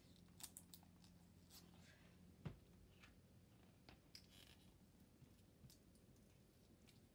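Near silence with faint scattered clicks and rustles of a plastic DVD case being handled, and one soft thump about two and a half seconds in. A faint low hum stops at the thump.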